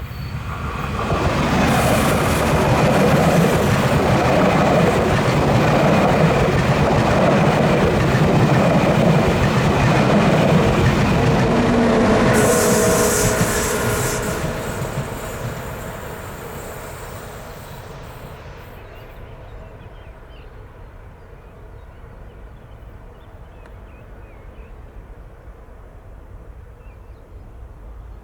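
A train passing close by, its wheels rumbling on the track, with some squealing tones near the end of the pass. It fades away over a few seconds about fifteen seconds in.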